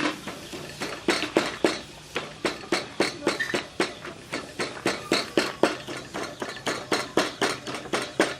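A knife chopping on a chopping board: a steady run of sharp strikes, about three to four a second.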